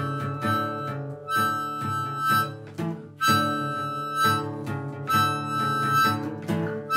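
Four-string acoustic guitar with rusted, buzzy strings plucked in a steady rhythm. A harmonica plays held notes over it in phrases about a second long.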